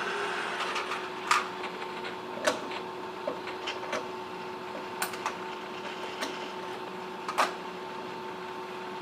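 Small parts being handled on a wooden workbench: scattered sharp clicks and taps, about eight, as screws are fitted and tightened in a small plastic gearbox and the gearbox is picked up and turned in the hand. A steady electrical hum runs underneath.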